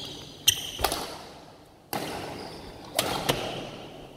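Badminton racket strikes on a shuttlecock during a rally: five sharp hits over the few seconds, each ringing on in the echo of the large hall.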